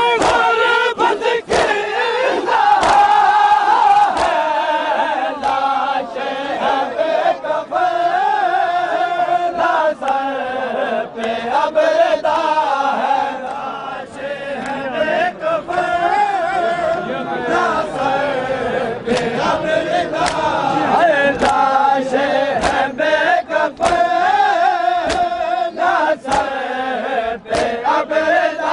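A large crowd of men chanting a mourning lament in unison, with sharp slaps of hands on bare chests (matam) cutting through the chant again and again.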